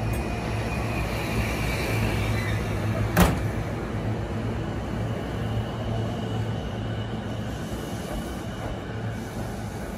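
JR East E233-series electric commuter train starting off from the platform and pulling away, with a steady low hum and a thin high whine. A single sharp click comes about three seconds in.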